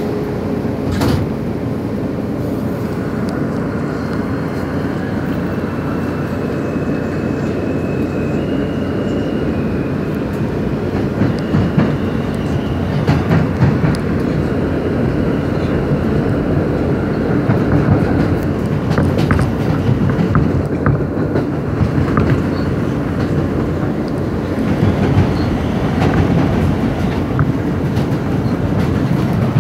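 An R160 subway train heard from inside the car while running at speed: a steady rumble of wheels on rail, with scattered clicks and clacks of the wheels over rail joints, bunched around 11 to 14, 19 to 21 and 25 to 26 seconds in.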